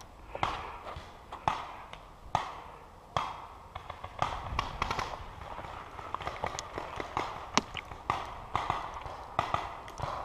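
Paintball markers firing in a game: irregular sharp pops, a few at first and then several a second.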